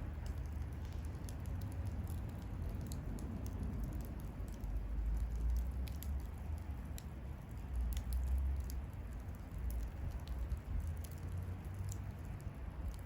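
Wood fire crackling, with many small irregular pops and snaps over a low steady rumble.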